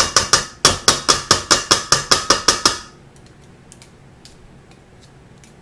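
A metal mixer beater rapped quickly against the rim of a stainless steel mixing bowl to knock the batter off: a fast run of sharp clanks, about six a second, stopping about three seconds in, followed by a few faint clicks.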